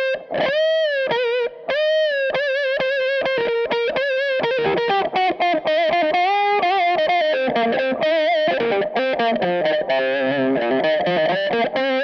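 Electric guitar playing a lead solo line through a Jam Pedals Seagull set as a cocked wah, giving a fixed, nasal filtered tone. The notes are bent and wavered with vibrato.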